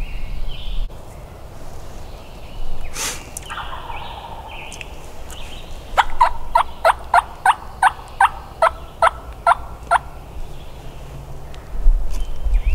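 Wild turkey calling in open woods: one louder call about three seconds in, then a run of about a dozen short, sharp yelps, evenly spaced at roughly three a second.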